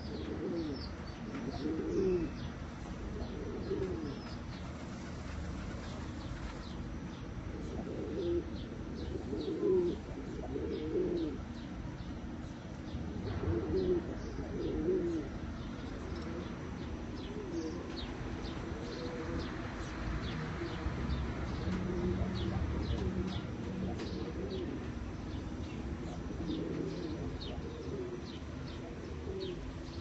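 Iraqi domestic pigeons cooing over and over, low rising-and-falling coos coming in runs every second or two, as a male circles with tail spread in courtship display.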